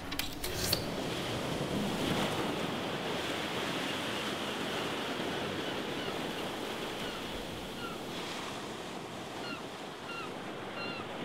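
A steady rushing noise, with a few sharp clicks in the first second and a series of short, high chirps from about two-thirds of the way in.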